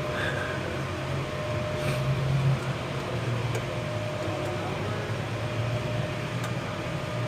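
Furnace running: a steady low motor hum under fan rush, with a faint steady whine above it.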